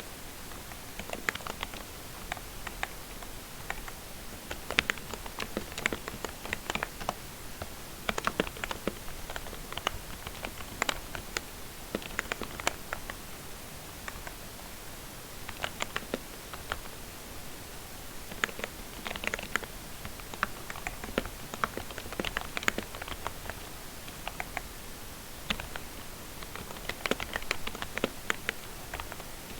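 Typing on a lubed membrane keyboard: soft key clicks in quick uneven runs, broken by short pauses between bursts.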